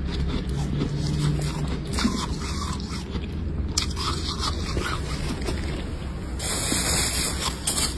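Flaky freezer frost crunching and scraping close to the microphone, a run of short crisp crackles. Near the end comes a harsher, hissier stretch lasting just over a second.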